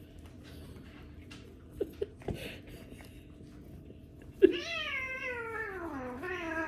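A domestic cat gives one long, drawn-out meow that starts loud and slides down in pitch. It is a hungry cat that has not yet been fed, calling for food. A few light taps come before it.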